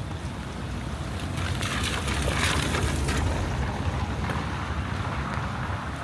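Rain and wind noise on a small handheld camera's microphone: a steady low rumble with a hiss that swells about a second and a half in, peaks, and eases off a couple of seconds later.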